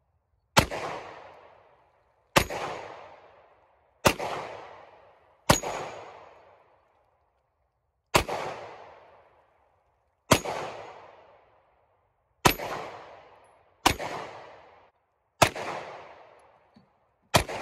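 Ten single gunshots fired at an unhurried, slightly irregular pace, roughly one every one and a half to two and a half seconds. Each shot has a sharp crack followed by an echoing tail that fades over about a second.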